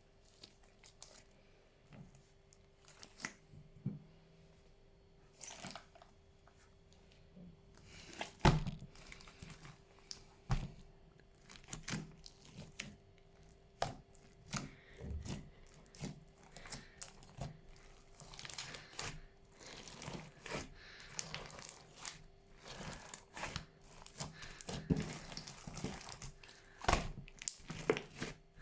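Hands kneading and stretching a big fluffy slime, giving irregular crackles, pops and tearing sounds that grow busier in the second half.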